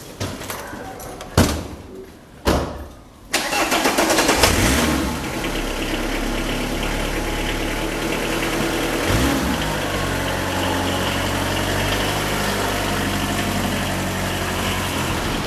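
Two van doors slam shut, then the Renault van's engine starts about three seconds in, revs briefly and settles into a steady idle.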